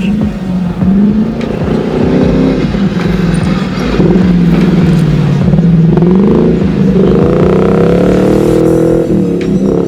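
A 2002 Ford Mustang GT's V8 is revving hard under load, its pitch climbing and dropping again and again as the throttle is worked and gears change.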